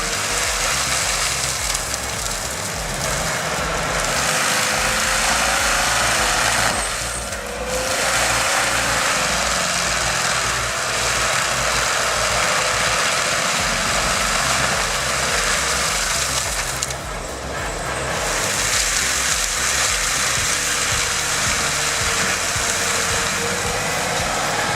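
Heavy machinery running steadily, a dense mechanical noise with a faint wavering whine, dipping briefly about seven seconds in and again about seventeen seconds in.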